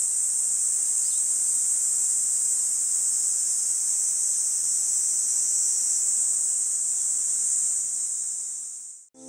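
Steady, high-pitched insect chorus in summer woodland, fading out near the end.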